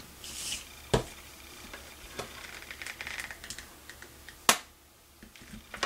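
Hands working with a hot glue gun, trim and a twig wreath on a tabletop: light rustling and scattered small clicks and taps, with a sharp click about one second in and a louder one about four and a half seconds in.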